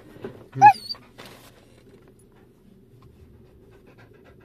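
A Samoyed gives one short, high-pitched bark about a second in, the last of a run of excited barks, then falls quiet while being petted.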